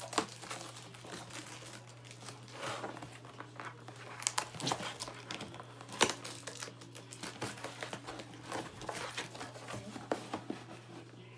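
Paper packaging being handled: rustling and crinkling with irregular sharp crackles, the loudest snap about six seconds in.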